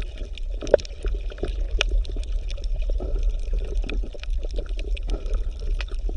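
Water bubbling and gurgling, with many small scattered pops over a steady low hum.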